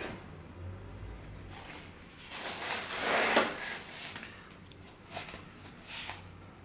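Rustling and light knocks from handling a car-stereo head unit and its packaging, with the loudest rustle about three seconds in.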